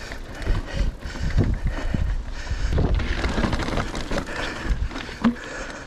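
Mountain bike rolling over a rough dirt trail, with irregular knocks and rattles from the bumps and wind buffeting the microphone.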